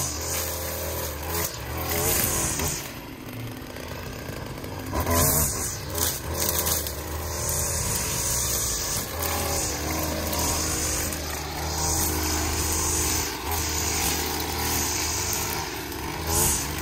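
Gas string trimmer's two-stroke engine running while cutting weeds, its speed rising and falling with the throttle.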